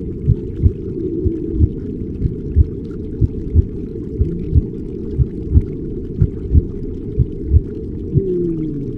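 Muffled, deep ambient soundtrack: a low double thump about once a second, heartbeat-like, under a dull wash, with slow falling moan-like calls near the end.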